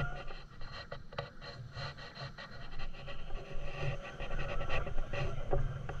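A moving motorbike heard from the rider's camera: wind rushes and rubs over the microphone in uneven gusts, with the engine running low underneath.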